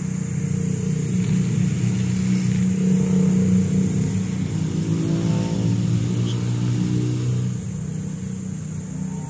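A motor vehicle's engine running, getting louder over the first three seconds and then easing off, its pitch shifting between about five and seven seconds in.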